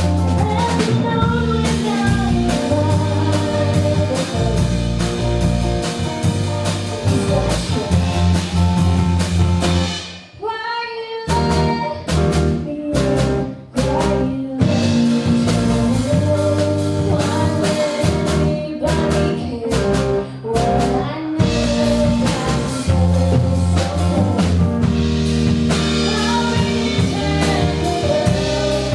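A live band playing a song with singing, drums and guitar. About ten seconds in the band briefly cuts out, comes back with a few stop-start hits, then plays on in full.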